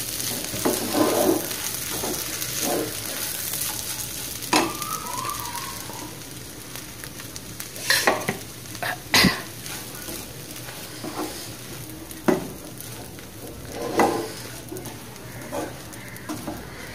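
Wooden spatula stirring and scraping a dry, crumbly mix of powdered bread, potato and chickpeas frying in a nonstick kadai, over a steady sizzle of hot oil. A few sharper knocks of the spatula against the pan come at irregular moments.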